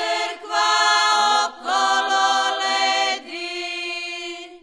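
Women's folk singing group singing a Slavonian folk song in several voices, ending on a long held final note that stops just before the end.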